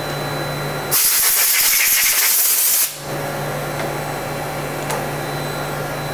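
Compressed-air blow gun hissing in one blast of about two seconds, starting about a second in and cutting off suddenly, as it blows chips and coolant off a freshly turned part in a CNC lathe chuck. A steady low machine hum runs underneath.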